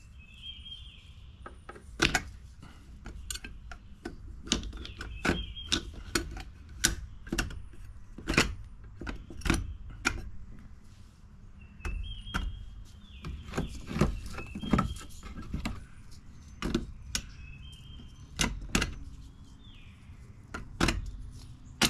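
Loaded shotgun shells being set one at a time into a shell holder, bases alternating: a long run of irregular sharp clicks and knocks, with a few brief scrapes between them.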